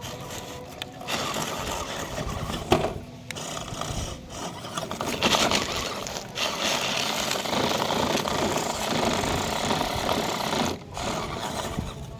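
Small electric motor and gearbox of an RC model truck whirring, cutting out briefly several times and starting again, with a sharp knock about three seconds in. The truck's wheels are slipping on an incline and it cannot climb.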